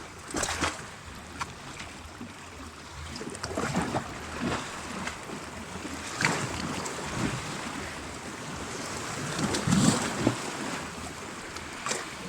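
Small sea waves washing and splashing against shoreline rocks in irregular surges, with wind buffeting the microphone.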